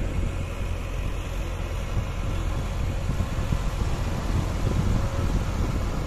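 Diesel engine of a soil-loaded tipper truck running steadily, a continuous low rumble.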